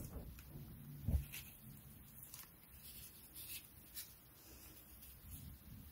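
Faint handling sounds of waxed polyester cord being knotted by hand on a cloth-covered board: soft rustles and a few light ticks, with a low bump about a second in.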